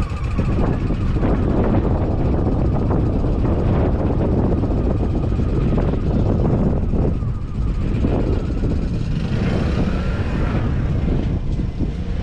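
Valtra Q285 tractor's 7.4-litre diesel engine running with a heavy, steady low rumble.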